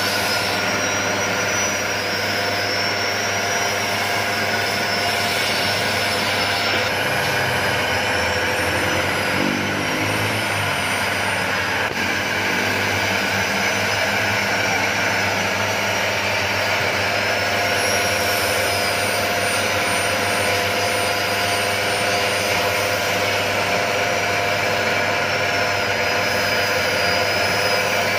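Electric coffee grinding machine running steadily as it grinds roasted coffee beans to powder. A motor hum sits under a high whine that wavers slowly up and down in pitch.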